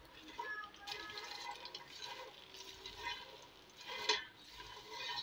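A plastic spatula stirring popped popcorn in a metal pot: light, irregular rustling and scraping, with a louder scrape about four seconds in.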